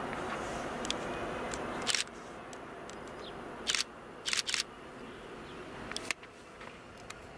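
Distant EN57 electric multiple unit approaching, a steady noise that drops off suddenly about two seconds in, with several short sharp clicks scattered through, two of them close together about four and a half seconds in.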